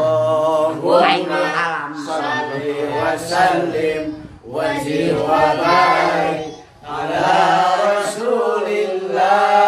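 An elderly man's voice reciting the Quran in the melodic tilawah style into a handheld microphone: long, high, ornamented phrases with short breaks for breath about four and a half and seven seconds in.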